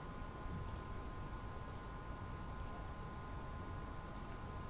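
Computer mouse clicking four times, short sharp clicks about a second apart, over a faint steady hiss with a thin steady tone.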